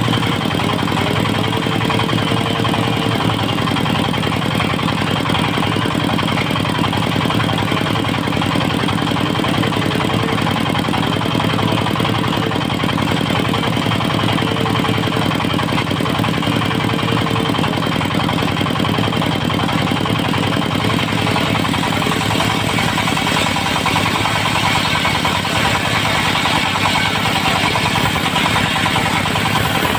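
Dongfeng diesel engine running steadily, driving a portable circular-saw sawmill. The sound grows a brighter hiss about two-thirds of the way through.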